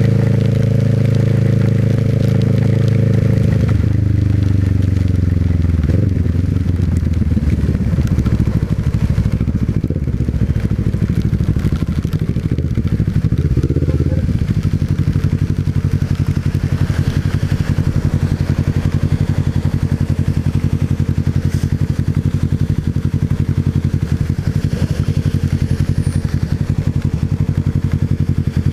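Motorcycle engine running at a steady speed, then the revs fall about four seconds in as it slows; from about halfway on it settles into a steady, evenly pulsing idle.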